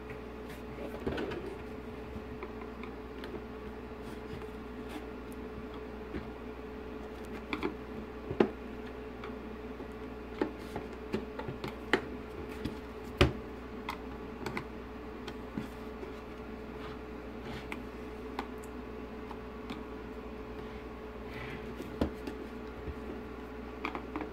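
Plastic clicks and taps as a screwdriver prises at the catches on the back cover of a Mercedes Vito W639 instrument cluster. The clicks come irregularly, a few of them sharper than the rest, over a steady hum.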